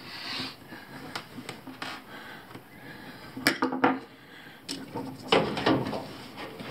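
Hands handling screws and the plastic drain pump of a front-load washer while fitting it in place: a series of light clicks and taps, with sharper knocks about midway and again later on.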